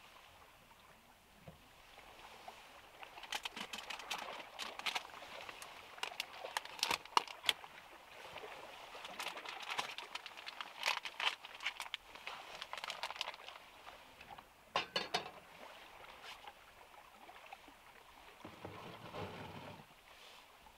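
Plastic food packaging rustling and crinkling by hand, with many small clicks and knocks as items are set down on a wooden board. A duller scrape near the end as a frying pan is set on the gas stove's grate.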